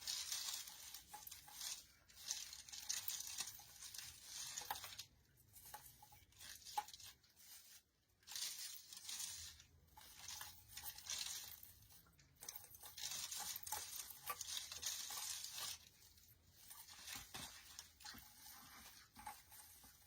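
Rustling and crinkling of an artificial pine swag as ornament balls wired into it are pushed and shifted by hand. The sound comes in repeated bursts with small clicks and short pauses.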